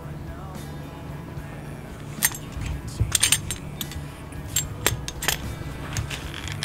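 Light metallic clinks and clicks as the double-prong metal buckle of a weightlifting belt is handled, its prongs knocking against the buckle frame. The clinks are scattered and irregular, starting about two seconds in.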